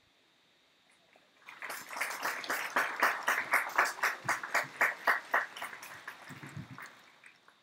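Applause: hands clapping quickly and close by, starting about a second and a half in, then thinning out and stopping over the last couple of seconds.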